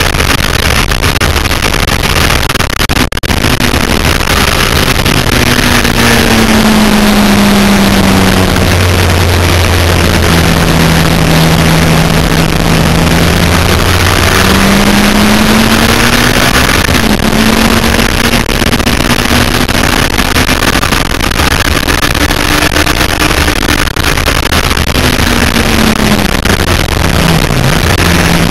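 Onboard sound of a Yamaha FZR1000's inline-four engine at racing speed, under heavy wind rush. The engine note drops about six seconds in, holds low, climbs again as the bike accelerates, and drops once more near the end.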